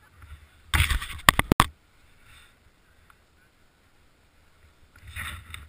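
Bumps and rushing noise on a snowmobile-mounted camera: a loud burst with three sharp knocks about a second in, and a shorter rush near the end.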